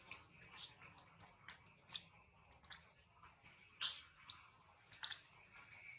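Faint, irregular sharp clicks, about a dozen over several seconds, with a louder one about four seconds in.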